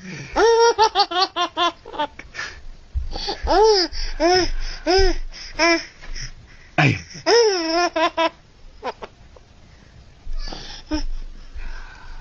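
A baby laughing in several runs of quick, pitched 'ha' pulses. A short, sharp falling noise about seven seconds in sets off one of the loudest runs.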